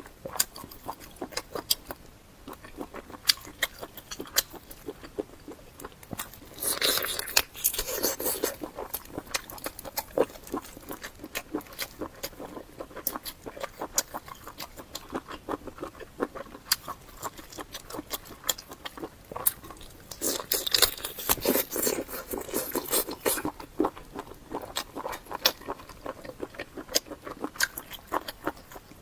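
Close-miked eating: steady chewing with wet mouth clicks and crunchy bites. There are two louder, busier stretches of chewing, about a quarter and about three quarters of the way through.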